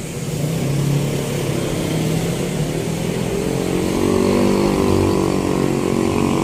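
A steady engine drone that grows louder over several seconds.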